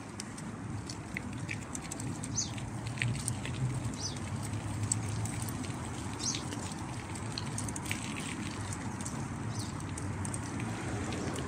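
Steady low rumble of wind and tyre noise while riding along a paved path, with a few short bird chirps scattered through it.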